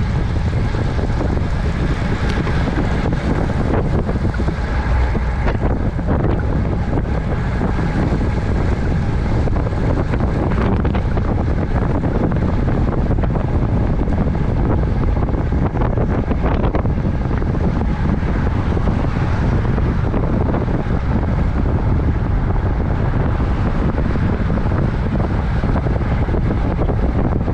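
Steady, loud wind rushing over the microphone while riding at speed, with a low vehicle rumble beneath it.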